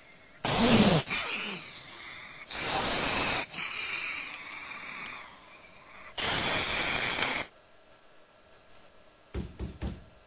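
Four loud bursts of breathy hissing noise, each a second or two long, with short pauses between them, followed near the end by a few soft clicks.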